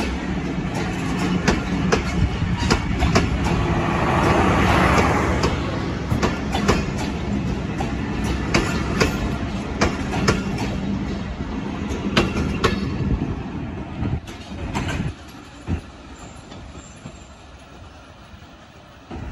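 Intercity passenger train coaches rolling past close by, their wheels clacking over the rail joints in an uneven run of sharp clicks over a steady rumble, with a broad hiss swelling briefly about four seconds in. After about fifteen seconds the sound drops away as the last coach passes and the train recedes.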